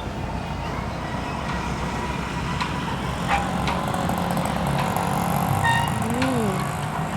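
Steady roadside traffic noise, with a few faint clicks and a short rising-then-falling tone about six seconds in.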